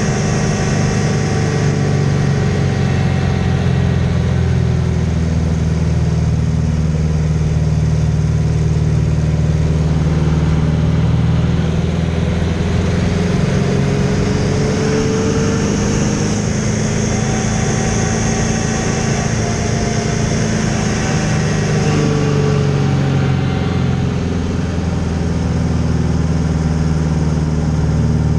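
Aerobatic biplane's piston engine and propeller heard from the cockpit, running loud and steady under power through aerobatic manoeuvres, with the pitch rising and falling a little as speed and attitude change.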